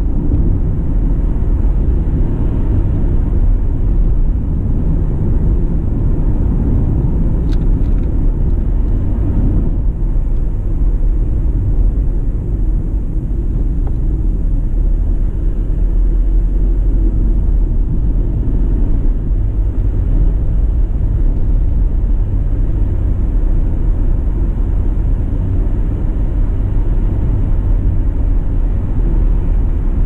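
A car driving steadily along a road: a constant low rumble of engine and tyres on the road surface.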